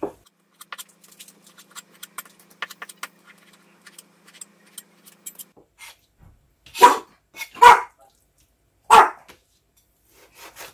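A knife taps lightly on a plastic cutting board as chicken giblets are chopped fine. In the second half a dog barks three times, short and loud.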